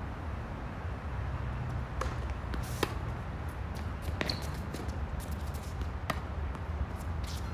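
Tennis rally on a hard court: sharp pops of a tennis ball struck by racquets and bouncing on the court, about five in all, spaced a second or two apart, over a steady low hum.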